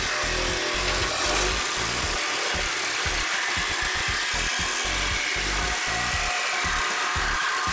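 Cordless reciprocating saw running continuously, its blade cutting through a rusted steel frame crossmember. Background music plays with it.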